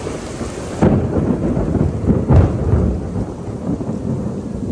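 Thunder cracking about a second in and rolling on as a long, uneven low rumble, over heavy rain pouring down on pavement.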